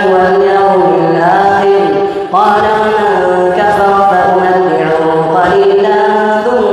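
A young imam's solo melodic Quran recitation in Arabic, chanted into a microphone, with long held notes and ornamented glides. There is a brief pause for breath about two seconds in, and then a rising phrase.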